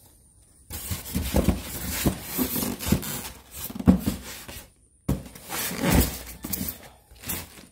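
Plastic wrap rustling and styrofoam packing and cardboard rubbing and knocking as a packed carton is handled, in two spells with a short break about five seconds in.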